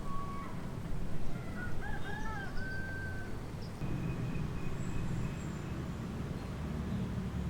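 A bird calls once, a wavering call about two seconds long that ends on a held note, over a low steady rumble that grows louder about four seconds in.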